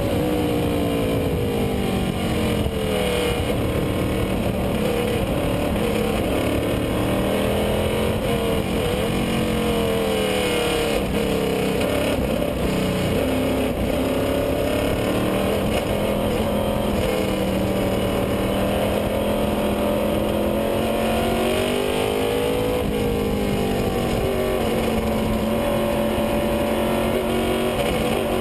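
Lola race car's engine heard from onboard at racing speed, its pitch rising and falling again and again as the driver works the throttle and gears through the corners, over steady wind and road noise.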